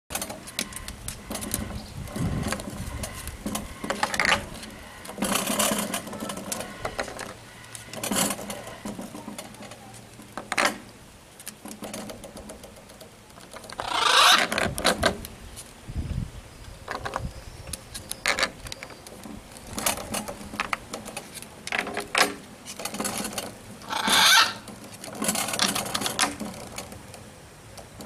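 Shape-puzzle pieces knocking and scraping on the board as a green-winged macaw picks them up with its beak and drops them into their cut-outs: irregular clicks and knocks, with a few louder scraping sounds.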